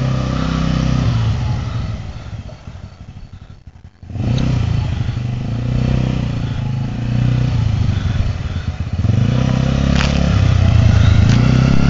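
Youth quad bike's small engine running as it is ridden, its pitch rising and falling as the throttle is opened and eased. The sound fades almost away about three seconds in, comes back suddenly at about four seconds, and grows louder near the end.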